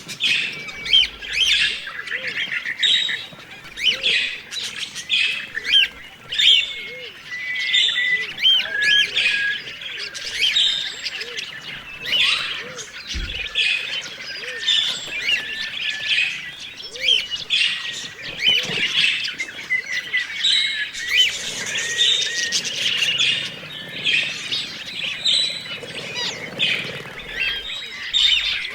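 A flock of budgerigars chirping and warbling continuously, many birds calling over one another.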